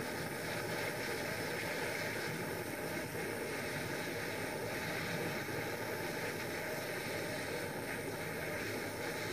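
Small dental soldering torch flame hissing steadily while it heats a wire joint to make the solder flow.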